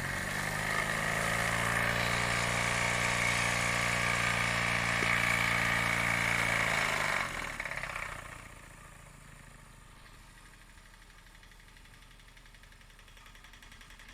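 Wilesco D16 toy steam engine running fast with a steady steam hiss. About seven seconds in its pitch falls as it slows, and the sound drops to a faint low ticking.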